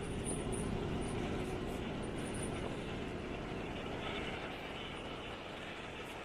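Steady running noise of a moving vehicle, with a steady hum underneath that fades out about halfway through.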